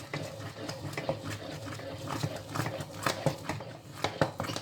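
A stirring utensil knocking and scraping against the pot in quick, irregular strokes as thick maize-meal porridge is stirred hard.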